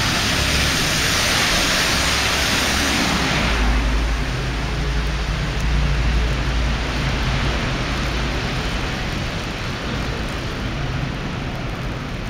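City bus passing close on a slushy, snow-covered street: a loud hiss of tyres through the slush that drops away after about three and a half seconds, leaving a low rumble of traffic.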